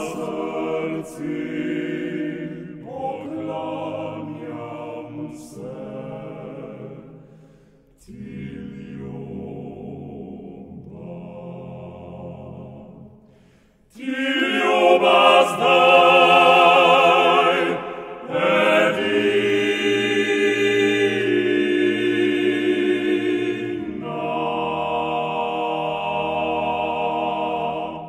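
Male vocal octet singing a Slovenian folk song a cappella in close harmony. The chords drop quiet about a third of the way in, swell loud about halfway, and close on a long held final chord.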